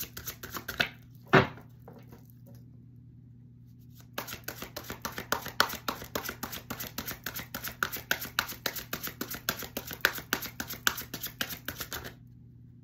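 Lover's Path tarot deck being shuffled by hand: a brief patter of card clicks at the start and a single sharp tap about a second and a half in, then a long run of rapid, even card clicks from about four seconds in until shortly before the end.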